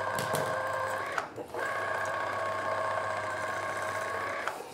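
Electric citrus juicer's motor running with a steady whine as lemons are pressed on it. It stops for a moment about a second in, then runs again until just before the end.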